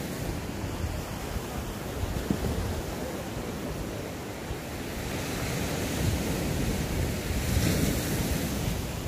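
Sea waves washing against the shore, with wind buffeting the microphone. The rush swells and grows louder in the second half.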